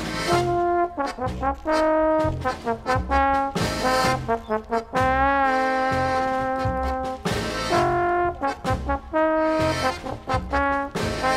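Instrumental music: a run of short, punchy notes, then a long held note with vibrato about halfway through, then short notes again, over a pulsing bass beat.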